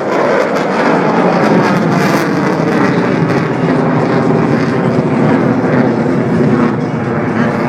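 Loud, steady jet noise from RSAF F-15 and F-16 fighter jets pulling up into a vertical climb.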